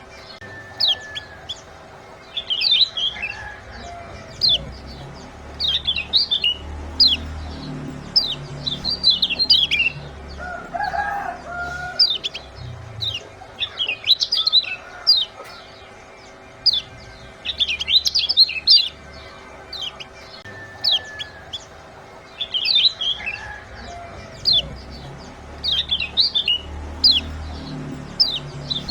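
Kecial kuning (yellow white-eye) giving clusters of rapid, high 'ciak' chirps every second or two. It is a lure recording meant to set quiet cage birds singing.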